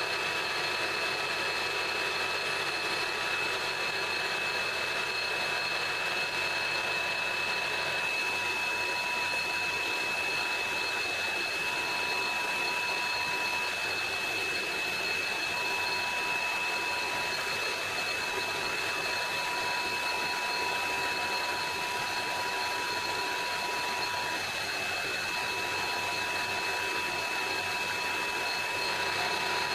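Metal lathe running steadily with a constant high whine as the tool faces the end of a threaded screw blank in the chuck.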